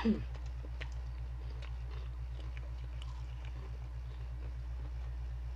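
Close-up chewing of crunchy chicharon (fried pork rinds): faint crisp crackles scattered through, over a steady low electrical hum.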